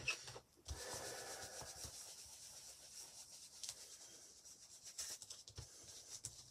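A foam ink-blending tool rubbed back and forth over paper, a faint, continuous scratchy scrubbing as ink is blended over a glued napkin panel. There is a light tap right at the start.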